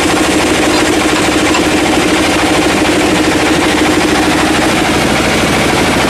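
Large band sawmill running, its blade sawing lengthwise through a teak log: a loud, steady machine drone with a fast rattle.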